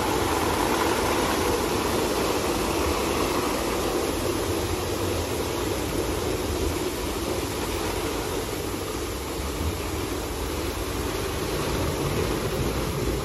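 Christ Genius Vitesse C160 rollover car wash gantry at work during its wash cycle: a steady, even machine noise without pauses or sudden changes.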